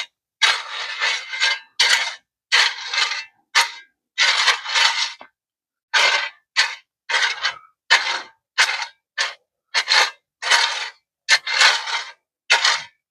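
Repeated scraping strokes of a tool through concrete mix being worked into a post hole, more than a dozen in an uneven rhythm of about one a second.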